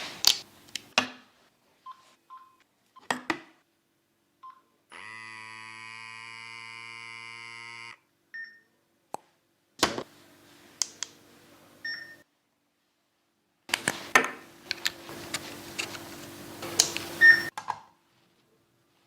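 Electronic beeps and clicks: short single-tone beeps and sharp clicks, a steady three-second electronic chord about five seconds in, and later a low hum under bursts of clicking.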